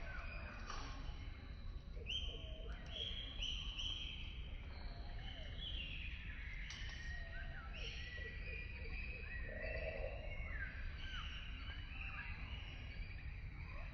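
Several birds calling and singing over one another: many short whistled notes that slide down or up in pitch, overlapping throughout, over a steady low rumble.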